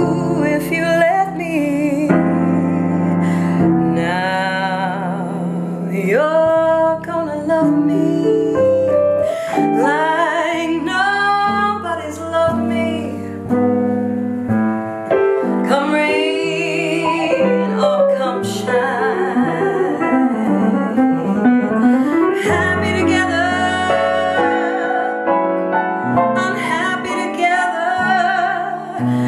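Jazz ballad piano playing chords and runs, with a wordless singing voice gliding and wavering over it at times.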